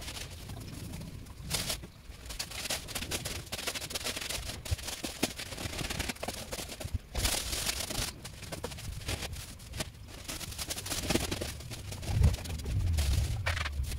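Rake and hands scraping and gathering dry leaves over bare earth, in irregular scratchy swishes and rustles. A low rumble near the end.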